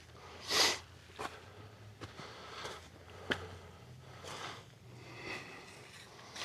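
Scattered footstep scuffs and clothing or handling rustles on wet ground, with one louder rustle about half a second in and a few sharp clicks.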